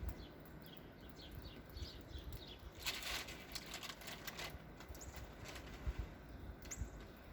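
Small birds chirping with short, repeated downward-sliding calls over a low rumble of wind on the microphone, with a brief rush of hiss about three seconds in.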